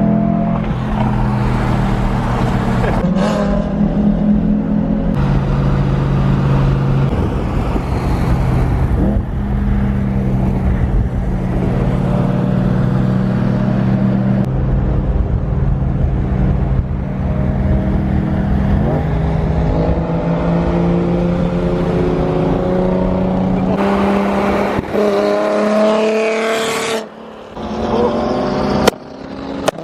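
Several car engines running and revving, with cars driving past.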